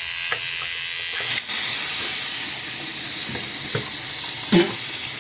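Electric toothbrush buzz dying away in the first second, then a bathroom tap running into the sink as a steady hiss, with a few knocks and clunks, the loudest near the end.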